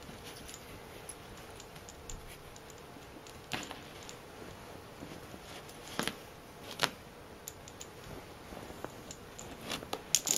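Scattered light clicks and rustles from a cat batting at and biting a wand toy's lure, with a quick cluster of sharper clicks near the end.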